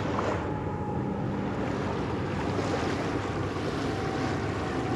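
A large jet airliner climbing overhead, a steady rumble, over the wash of small waves and wind on the microphone.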